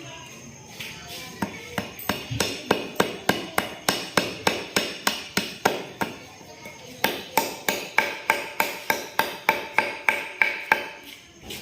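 Steady hammering, about three blows a second, in two runs with a brief pause between them; the later blows ring with a light metallic tone.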